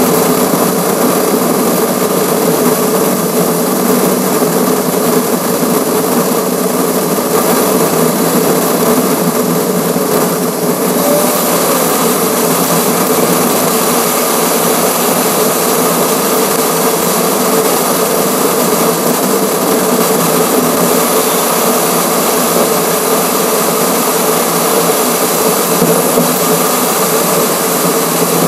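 Steady wind and road noise from a camera mounted on a car's front grill at highway speed, sped up sixfold, so it comes across as a high, even whirr like a power tool.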